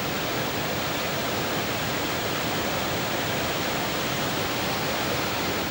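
Rain-swollen river in spate pouring over a low ledge and churning below it: a steady, loud rush of water.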